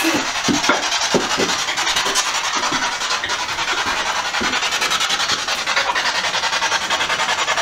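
Handling noise: fabric steadily rubbing over the handheld camera's microphone as its holder hurries, with a few soft thumps near the start.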